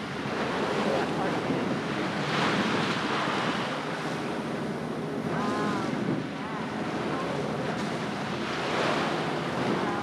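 Seawater rushing and splashing along the hull of a sailboat under way, swelling and easing as the waves pass, with wind buffeting the microphone.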